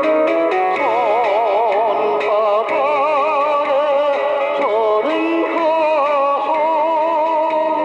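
Korean trot song: a melody line of long held notes with heavy vibrato over a backing track with guitar.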